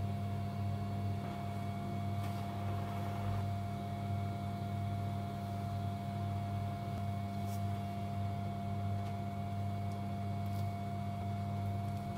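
Steady low electrical hum with a constant higher tone, as from an appliance or fan running, with a few faint soft clicks.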